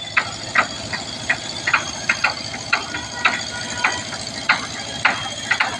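Repeated sharp hammer blows, about two a second and not quite regular, on the timber blocking and wedges under a wooden boat's hull, over the steady hum of an engine running.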